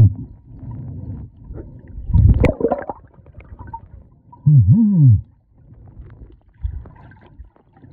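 Muffled sounds from a man submerged in a full-face snorkel mask: a loud gurgling burst about two seconds in, then a low moaning call from his voice that rises and falls, about four and a half seconds in.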